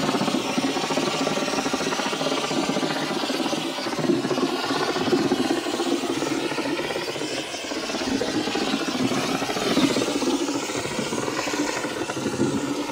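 Air-fed stucco hand hopper gun spraying a dash finish coat: a steady rush of compressed air through the nozzle with stucco spattering onto the wall, and a low steady hum underneath.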